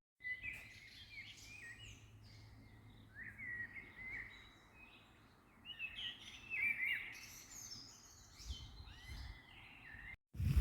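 Small songbirds singing: short, quick chirping phrases that repeat in clusters with brief pauses between them, over a faint low background rumble.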